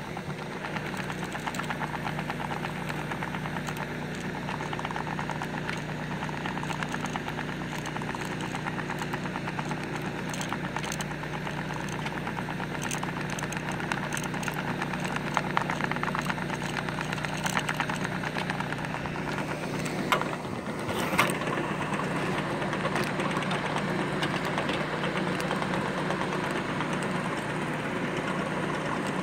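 An engine running steadily at a constant speed, with a few short knocks about two-thirds of the way through.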